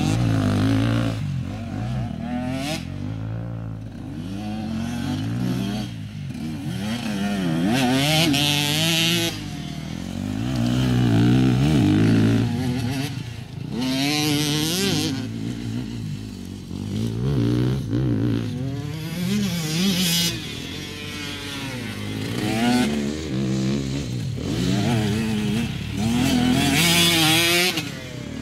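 KTM enduro dirt bikes riding a tight dirt course, their engines revving up and easing off over and over, the pitch rising and falling with each throttle opening and turn. Louder spells come as a bike passes close.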